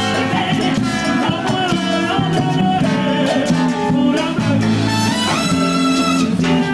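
A Cuban salsa band playing an up-tempo number, with dense layered instruments that run steadily on.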